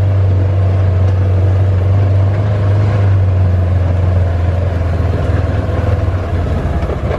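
Ranger side-by-side utility vehicle's engine running with a steady low drone as it drives along a grassy woodland track, heard from inside the open cab; it eases off near the end.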